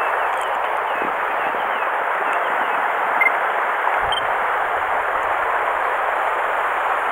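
Shallow rocky mountain stream running: a steady rush of water over stones, with one small click about three seconds in.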